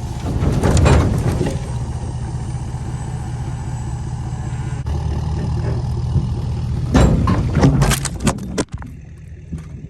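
Firewood processor running: a steady engine drone with loud bursts of clatter and rushing noise about a second in and again about seven seconds in.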